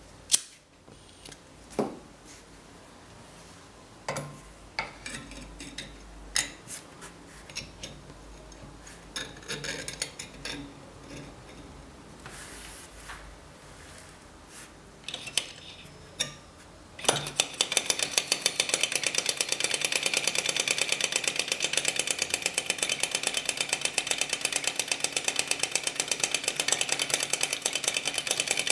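Scattered handling clicks and knocks while the spirit lamp is set under the cylinder. About 17 seconds in, a small aluminium-and-bronze flame-licker (vacuum) engine starts suddenly and runs with a fast, even mechanical clicking.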